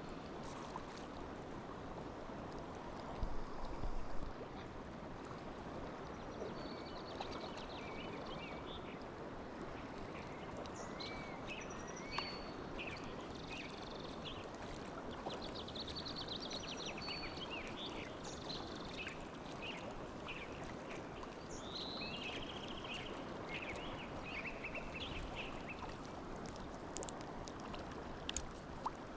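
Stream water rushing steadily, with birds chirping and trilling over it from several seconds in until near the end. A few low bumps come about three to four seconds in.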